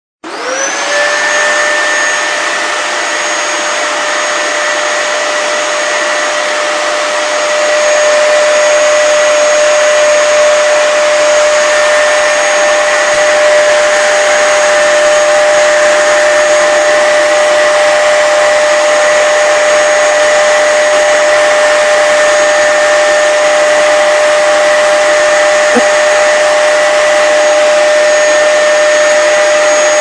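Vacuum cleaner switched on, its motor whine rising as it spins up, then running steadily and loudly; it grows a little louder about eight seconds in.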